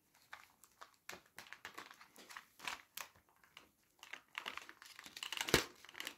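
Clear plastic coin-album pocket sheets, holding encapsulated coins, crinkling and clicking as they are handled and turned in a ring binder. A run of small irregular crackles that grows denser about four and a half seconds in, with one sharp click near the end.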